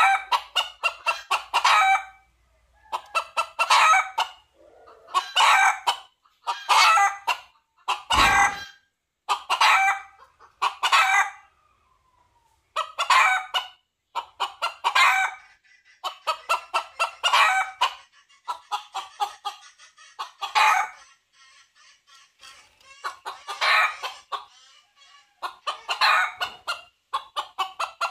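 Red junglefowl rooster calling: repeated bursts of rapid clucking and short crows, one every one to three seconds. These are the calls a male makes when seeking hens. There is a single low thump about eight seconds in.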